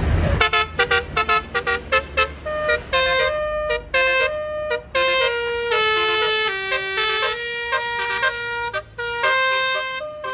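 Telolet basuri multi-tone bus horn playing a tune: a run of quick short toots, then longer held notes that step up and down in pitch.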